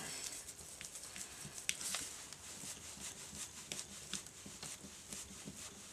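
Faint scattered clicks and rustling from gloved hands handling a small plastic solenoid valve body and a small screwdriver at its tiny screws.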